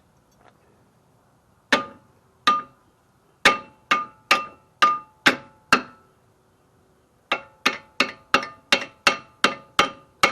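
Hammer tapping metal in three runs of quick blows, each strike ringing briefly. New front brake pads are being knocked onto a tight caliper bracket and its clips, where they should slide on by hand.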